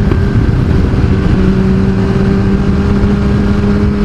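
Kawasaki ZX-10R inline-four sportbike engine running at cruising speed, holding a steady pitch that dips slightly about a second in and then holds.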